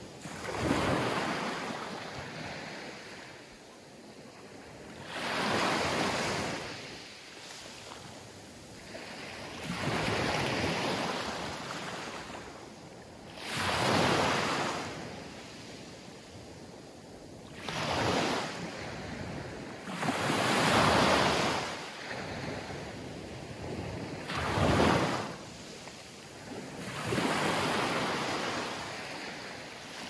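Small Mediterranean waves breaking and washing up a coarse sand and pebble beach, a surge of surf every three to five seconds, about eight in all.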